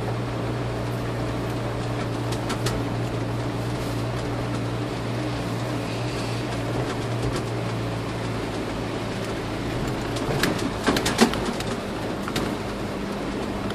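Off-road vehicle's engine heard from inside the cab, running at a steady light throttle on a gravel track. About ten seconds in the engine note changes, and a burst of knocks and rattles follows as the vehicle jolts over rough ground.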